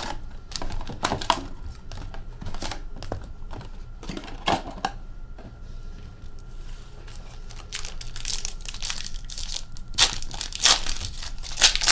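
Foil-wrapped hockey card packs crinkling and rustling as they are pulled from a cardboard retail box and stacked, with irregular clicks and louder bursts of crinkling near the end.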